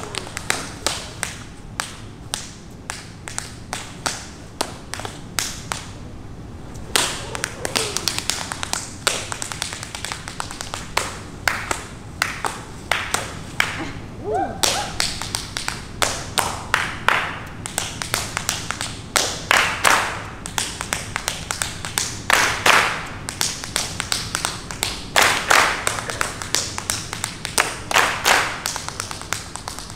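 Unaccompanied tap dancing: quick rhythmic runs of shoe taps and heel and toe strikes on a wooden dance floor, with a brief pause about six seconds in.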